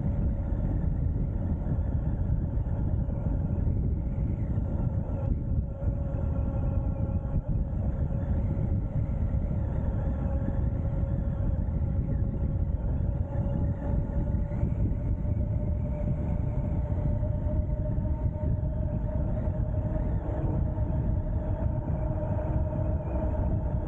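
Electric bike under way: a steady motor whine that climbs slowly in pitch over the second half, over a heavy low rumble of wind on the microphone.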